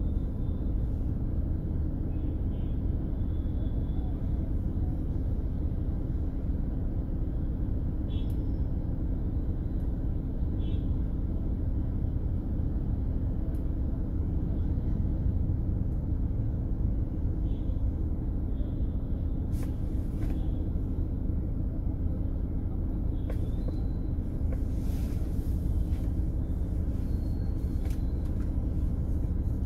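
Steady engine and road rumble of a vehicle driving through city traffic, with a constant low hum. A few faint, short high beeps and clicks come and go over it.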